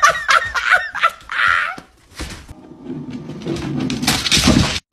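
A dog vocalising: several short, high whines in the first second or so, then a lower, rougher grumbling that grows loudest near the end.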